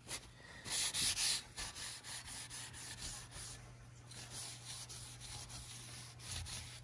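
Paper towel rubbing and wiping the metal chassis inside a Pioneer SA-7800 stereo receiver during cleaning: a series of scrubbing strokes, loudest about a second in and softer after.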